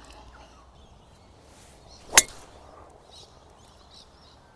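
A golf club strikes the ball on a tee shot: one sharp crack about two seconds in. Birds chirp faintly in the background afterwards.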